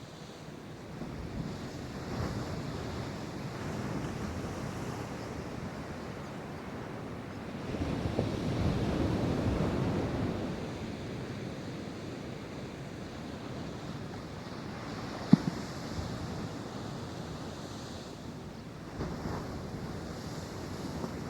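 Pacific Ocean surf breaking and washing ashore, with one wave surging louder about eight to ten seconds in, and wind buffeting the microphone. A single brief sharp knock about two-thirds of the way through.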